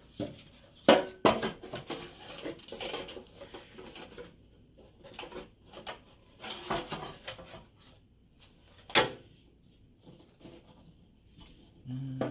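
Irregular clicks, knocks and rustling of parts and SAS cables being handled and fitted inside a tower server, with sharp clicks about a second in and a loud one near nine seconds.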